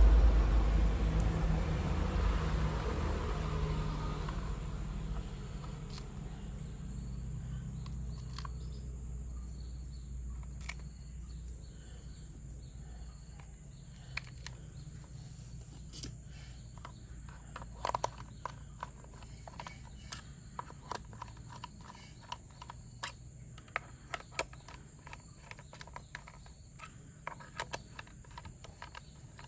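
Plastic toy train parts being handled during assembly, giving scattered light clicks and taps. A low rumble fades out over the first few seconds.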